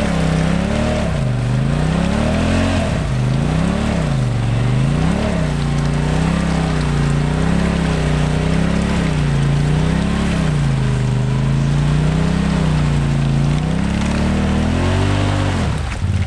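Polaris RZR Turbo side-by-side's engine revving up and down over and over, about once a second, as the stuck machine works to drive itself out of a deep mud rut. The swings are widest for the first few seconds, then settle into a steadier, smaller rise and fall before the revs drop near the end.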